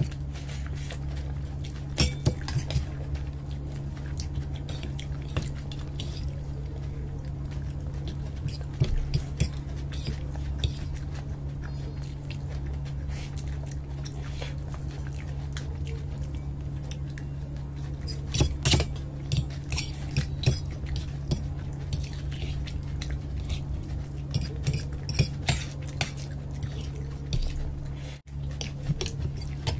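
Forks clinking and scraping on stainless steel plates while noodles are eaten, in scattered clusters of sharp clicks, with chewing between them over a steady low hum.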